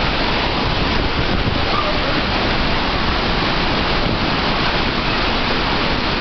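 Snoqualmie Falls swollen with flood runoff after four days of rain: a steady, loud rush of falling water.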